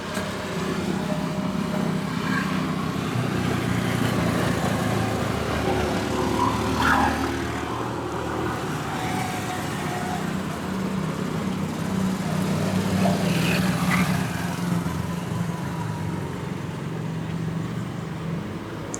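Street traffic: a vehicle engine running with a steady low hum, with a few brief higher-pitched sounds over it.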